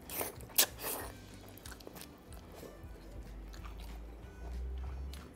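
A man slurping egg noodles from a bowl, with three short slurps in the first second, then chewing the mouthful.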